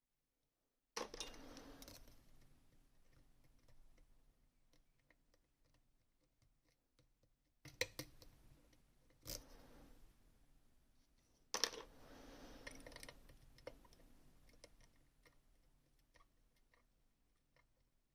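Faint small clicks and taps of lock picks working inside an ASSA Twin 6000 pin-tumbler lock, with a few sharper knocks about a second in, near the middle and two-thirds through.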